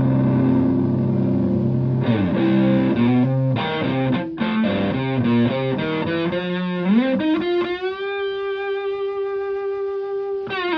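Stratocaster electric guitar played through an EQD Hoof fuzz pedal into a Fender Twin Reverb-style valve amp, with a thick fuzzed tone. A ringing chord gives way about two seconds in to a run of single notes, then a string bend rises into one long sustained note held for about three seconds.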